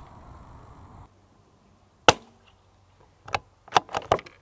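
A CZ 457 .22 rimfire rifle fires a single subsonic .22 LR round, a sharp report about two seconds in. About a second later come four quick metallic clicks of the bolt being worked.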